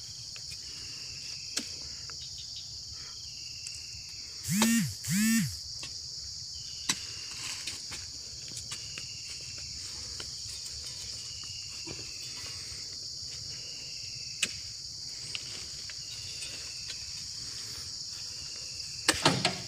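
A steady, high insect drone of crickets or cicadas. About four and a half seconds in come two short calls that rise and fall in pitch, and a few sharp knocks sound as oil palm fruit bunches are pitched up into the truck.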